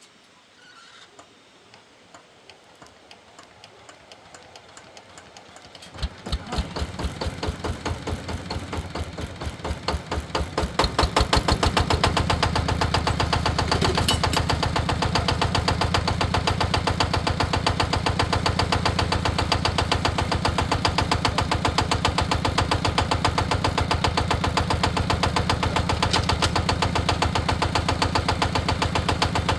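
An engine being started: faint, regular ticking that grows louder, then it catches about six seconds in and fires unevenly for a few seconds. About twelve seconds in it settles into a steady, evenly pulsing idle.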